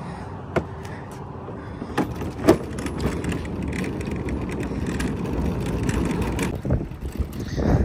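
Road traffic noise that swells for a few seconds as a vehicle passes, then eases, with a few light knocks.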